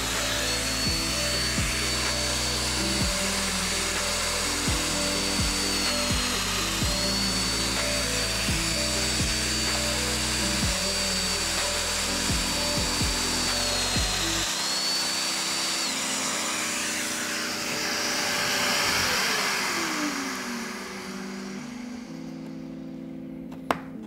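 Festool DF 500 Domino joiner running with a high whine while cutting two mortises into a board. The pitch dips briefly at each plunge, and the machine is switched off and winds down a little past halfway. Background music plays throughout.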